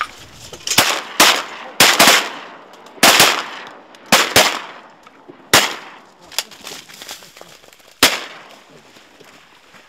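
A volley of shotgun fire from several duck hunters shooting at incoming ducks: about a dozen sharp shots over roughly eight seconds, some in quick pairs and some overlapping. The last shot comes about eight seconds in.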